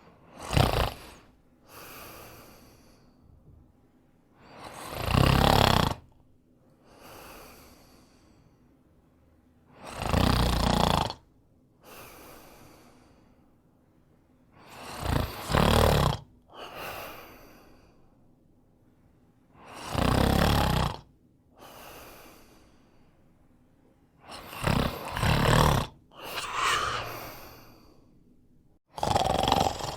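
A man snoring: a loud snore about every five seconds, each followed by a softer breath.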